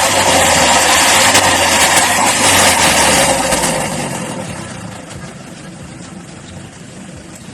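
Toyota HiAce 2.5 D4D diesel engine running loudly after an engine treatment, then dropping to a lower, steadier level about four seconds in.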